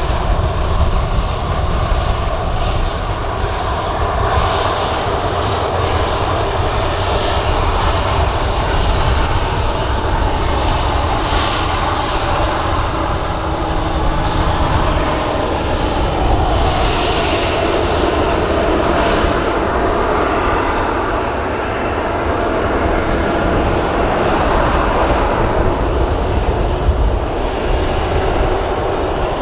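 Ryanair Boeing 737's jet engines running at takeoff power during its departure, a loud, steady jet noise with a strong low rumble.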